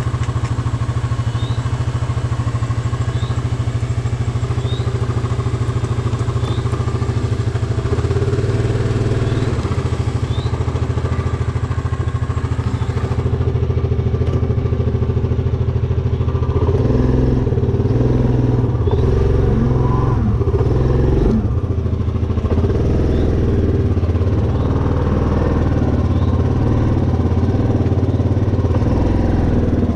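Four-wheeler (ATV) engine running steadily at low speed, with the throttle working harder and more unevenly from a little past halfway.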